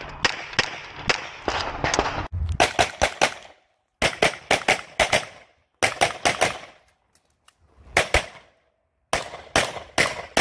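Semi-automatic pistol shots fired in fast strings of several shots each, with short pauses between strings, as the shooter moves through a practical shooting stage. About two seconds in, the sound changes abruptly.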